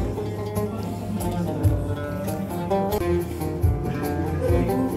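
Background instrumental music made of many short plucked-sounding notes over a low pulse.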